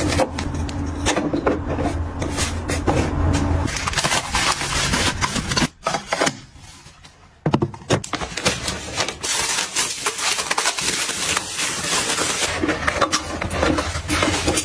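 Soft paper tissue packs and toilet paper being handled and set into a clear plastic box and holders: crinkly rustling with light clicks and taps. A low steady hum sits under the first few seconds, and there is a short quiet break in the middle.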